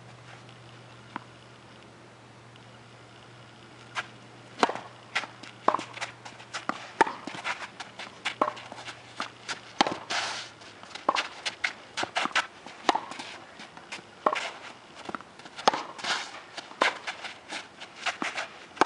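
Tennis rally: sharp pops of racket strings hitting the ball and of the ball bouncing on the court, mixed with shoe scuffs and footsteps, coming at uneven intervals from about four seconds in. A faint low hum underneath fades out about halfway.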